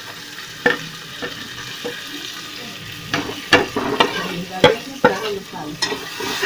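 Steel slotted spoon scraping and clinking against the inside of a pressure cooker while stirring ground spices into onions frying in oil, with a sizzle underneath. The clinks come singly at first and more often in the second half.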